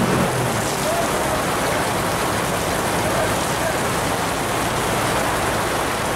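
Heavy rain pouring down on wet tarmac and parked cars, a steady hiss.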